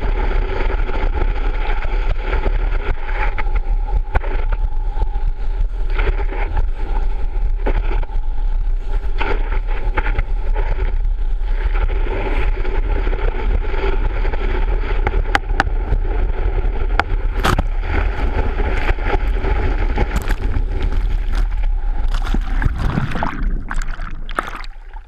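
Water rushing and spraying against a water ski, picked up by a camera mounted on the ski, over a steady low rumble. Near the end the sound drops and turns muffled as the camera goes under the water.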